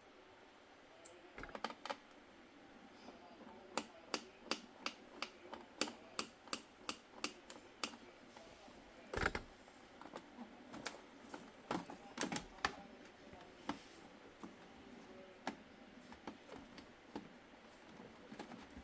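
Sharp plastic clicks and taps from a laptop being taken apart by hand. They come in a quick run of about three a second for a few seconds, then as scattered clicks with a couple of louder knocks, as parts and tools are handled.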